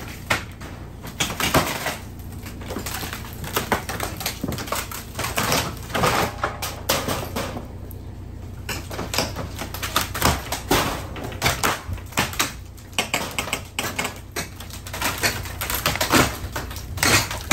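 Small excavator's demolition grapple breaking up a wooden house: irregular cracking, snapping and clattering of timber and debris over the steady low hum of the machine's engine.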